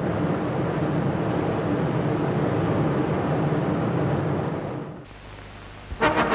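Steady, noisy drone of a Catalina flying boat's radial engines, fading out about five seconds in. Orchestral music with brass starts just before the end.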